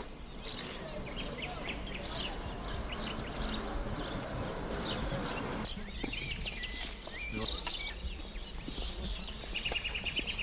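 Small birds chirping and twittering, with a quick trilled run near the end. A steady rushing noise underneath in the first half stops abruptly a little past halfway.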